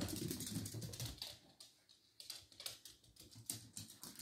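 A small dog's claws clicking and skittering on a hard wood-look floor as it scrambles after a stuffed toy: irregular rapid clicks with light thuds, busiest in the first second and a half.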